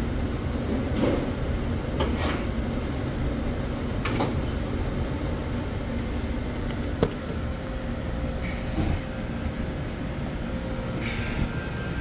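Steady low mechanical rumble of commercial kitchen machinery, with a few light knocks and one sharp click about seven seconds in.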